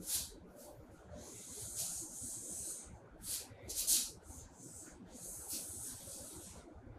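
Whiteboard marker drawn across a whiteboard, ruling lines: a run of short and longer hissing strokes, the loudest about four seconds in.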